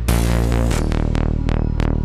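Electronic background music with a steady pulsing beat, about three hits a second, and a wash of hiss over the first part.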